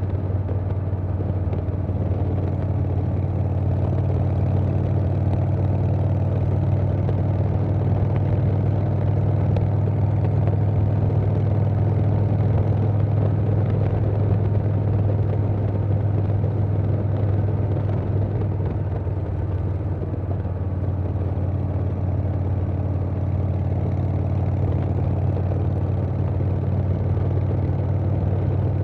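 2020 Harley-Davidson Softail Standard's Milwaukee-Eight V-twin running steadily on the move through a Vance & Hines Big Radius 2-into-2 exhaust, with wind noise.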